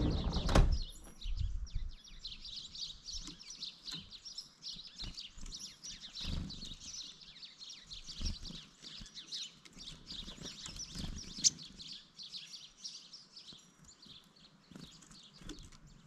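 Wild songbirds chirping around a feeder: many short, high chirps overlapping steadily, with a few low thuds and a single sharp click about eleven seconds in.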